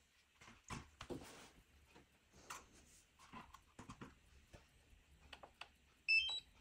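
Scattered clicks and rustles of hands handling the drone's plastic parts, then near the end a quick run of several short electronic beeps: the power-on chime of the DJI Mini 3 Pro gear starting up.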